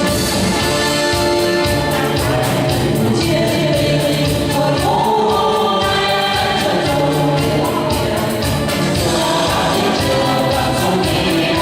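A group of voices singing a march song together over instrumental accompaniment with a steady, even beat.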